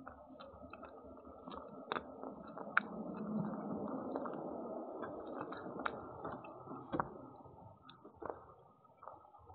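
A cat chewing and eating food from a dish close to the microphone, with irregular clicks of its teeth and jaws.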